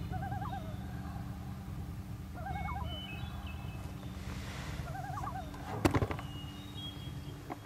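Common loon calling, a short wavering tremolo repeated three times about two and a half seconds apart. A sharp knock comes about six seconds in.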